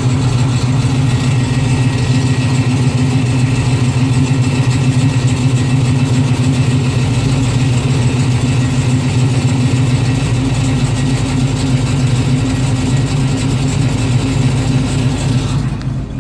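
Car engine running steadily at idle with a constant low hum, recorded as a strange noise of unknown cause. The higher hiss drops away just before the end.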